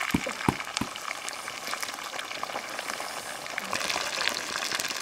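Hot oil sizzling and crackling steadily around a whole fish shallow-frying in a pan with lemongrass and garlic. A few short soft knocks in the first second come from a wooden spatula against the pan.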